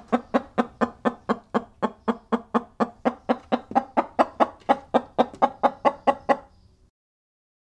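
A chicken clucking in a steady, even run of short clucks, about four a second, stopping a little before the end.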